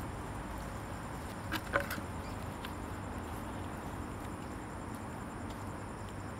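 Quiet night ambience: a steady hiss with a faint, high, evenly pulsing insect chirr. Two light clicks come about one and a half seconds in.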